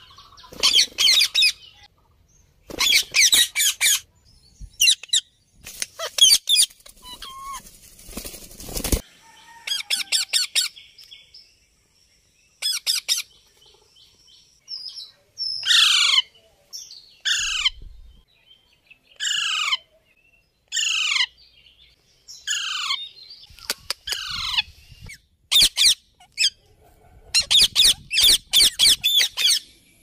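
Indian ringneck and Alexandrine parakeets screeching: groups of harsh, high squawks, then a run of short calls that each drop sharply in pitch, then more rapid harsh screeches near the end.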